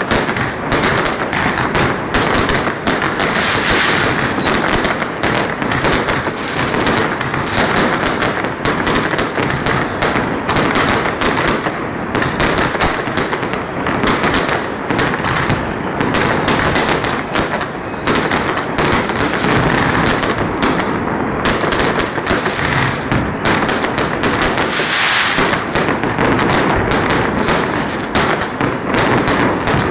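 A dense, continuous barrage of fireworks and firecrackers bursting, bangs packed close together without a break. High whistles falling in pitch sound every second or two through stretches of it.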